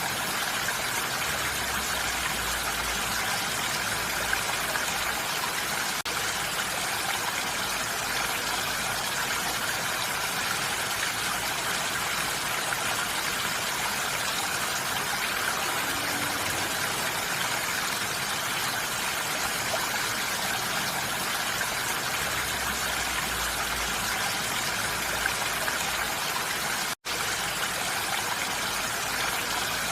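Steady rain falling on a roof, an even hiss of many drops with no let-up. It cuts out for an instant near the end.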